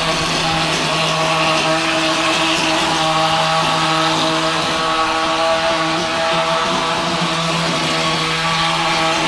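G 54 plaster-spraying machine running steadily with a constant hum, and compressed air hissing at the spray gun as wet plaster is sprayed onto a brick wall.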